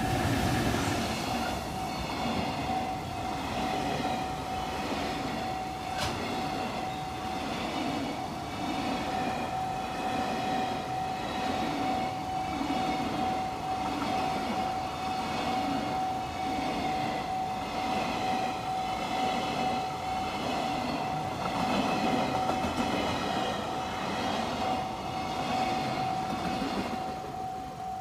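A JR freight train, an electric locomotive hauling container wagons, passes over a level crossing with its wheels clattering in a repeating rhythm, and it fades just before the end. The crossing's warning bell rings steadily through the whole pass.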